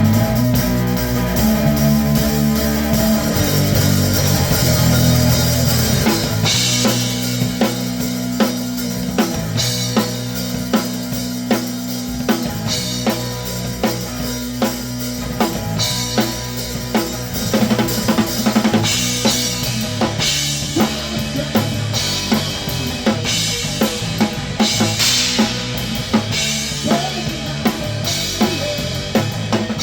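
Grunge rock band playing: heavy sustained guitar and bass chords, then about six seconds in it drops to a drum-led section. Kick drum and a custom-built Radius Drums snare keep a steady beat, with cymbal crashes every few seconds over the bass line.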